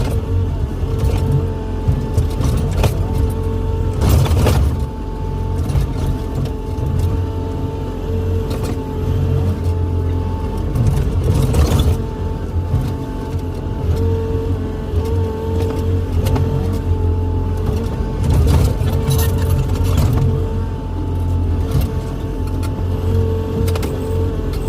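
Excavator's diesel engine running under load with a steady whine from the hydraulics, rising into short, louder noisy surges about 4, 12 and 19 seconds in as the machine works.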